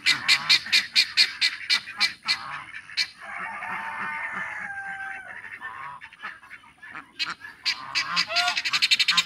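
Farm geese honking in a fast run of repeated calls, about five a second, that stops about two and a half seconds in and starts again near the end. In between, a long drawn-out call whose pitch falls at the end, a rooster crowing.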